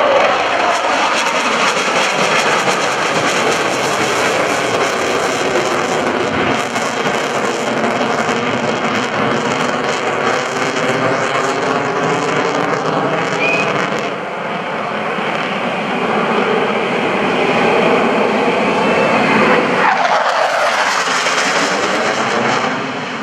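Boeing F/A-18 Hornet jets with twin turbofan engines flying past, their jet noise loud throughout with a sweeping, phasing whoosh. About twenty seconds in, the pitch falls as a jet passes.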